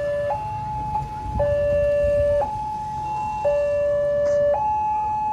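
Railway level-crossing warning siren on a WANTECH crossing, alternating between a high and a low tone, each held about a second, sounding while the barrier lowers: the signal that a train is approaching and the road is closing.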